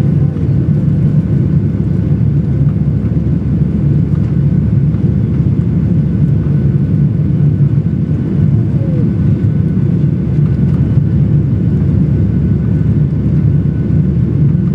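Cabin noise of a Boeing 737-800 climbing out just after takeoff: a steady low rumble of its CFM56-7B engines at climb thrust mixed with airflow over the fuselage, heard from a window seat over the wing.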